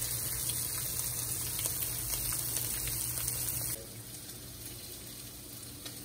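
Wagyu short rib slices sizzling in a frying pan: a steady hiss over a low hum, cutting off abruptly about four seconds in to a quieter faint hiss.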